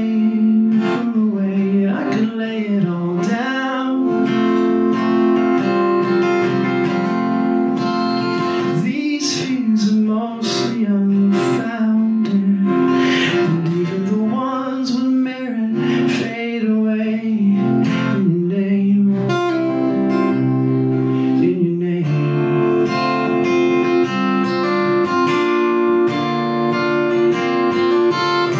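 Singing with acoustic guitar accompaniment; the voice stops about 22 seconds in, and the guitar plays on alone.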